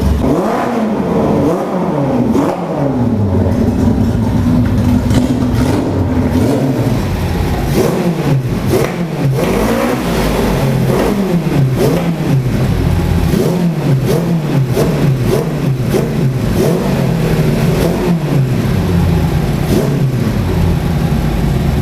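The four-cylinder engine of the Riva 600 motorcycle, fed by two carburettors, revved again and again, its pitch rising and falling every second or two. The builder says it does not yet run perfectly and is a bit rough at low revs.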